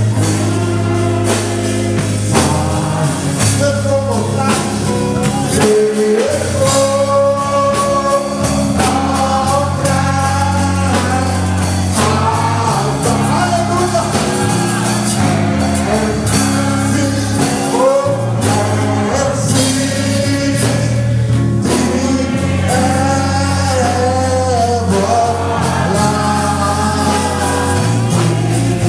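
Live gospel praise-and-worship music: voices singing with the congregation joining in, over a band with a steady bass line and electric guitar.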